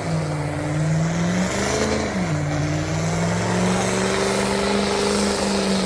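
Truck engine running, its pitch dipping about two seconds in and then climbing slowly as the revs rise.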